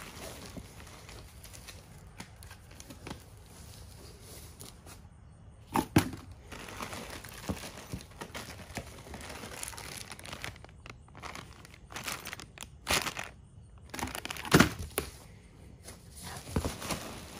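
A boxed inflatable being unpacked: irregular crinkling and rustling of its packaging, with a few sharp knocks, the loudest about six seconds in and again near the end.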